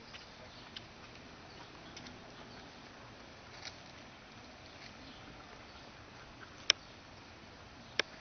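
Quiet open-air background hiss broken by a few sharp clicks, the two loudest about two-thirds of the way through and at the very end.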